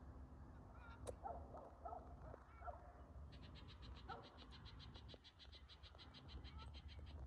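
Faint wild animal calls: a few short chirping calls in the first few seconds, then an even trill of about eight pulses a second lasting some three seconds, over a low steady rumble.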